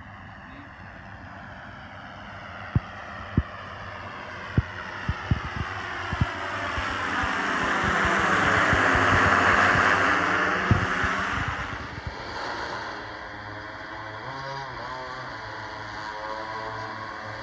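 Multi-rotor drone's propellers buzzing, growing louder as it comes close overhead about nine seconds in, with the sound seeming to sweep as it passes, then dropping back to a more distant buzz. A few short low thumps come in the first six seconds.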